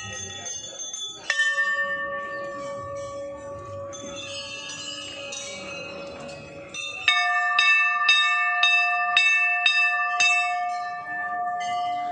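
Brass temple bells hanging from an entrance gate, rung by hand. One bell is struck about a second in and rings on, slowly fading. From about seven seconds a second, differently pitched bell is rung repeatedly, about two strokes a second for some three seconds, and keeps ringing afterwards.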